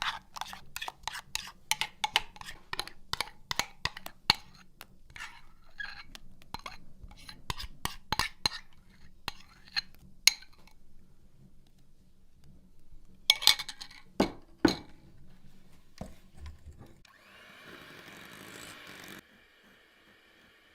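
Sharp, irregular knocks and clicks of kitchen utensils during food preparation, pausing briefly about 11 seconds in, then a short rasping noise near the end.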